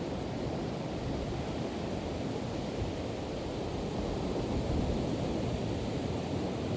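Steady rushing of Pacific Ocean surf, with wind noise on the microphone.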